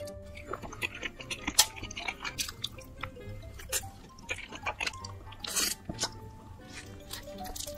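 Close-miked wet chewing and mouth clicks of someone eating fried rice and a seaweed-wrapped rice triangle, with soft background music underneath.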